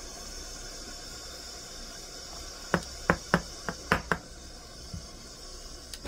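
Steam wand of a Breville Barista Express espresso machine hissing steadily. Midway through come six sharp knocks in quick succession.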